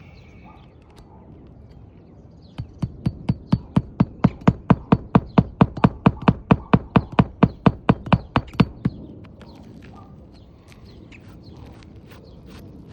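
A hammer striking in a steady run of about 25 sharp blows, roughly four a second. The blows start about two and a half seconds in and stop short of nine seconds, during a roof shingle repair.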